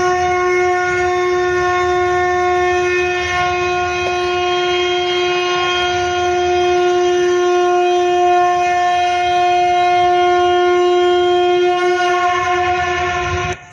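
Conch shell (shankh) blown as one long, steady, unbroken note that cuts off suddenly near the end.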